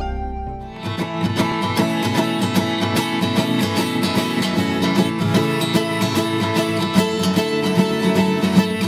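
Background music: a slow piece of held notes fades and, about a second in, a brisk tune of quick, ringing notes with a steady beat starts.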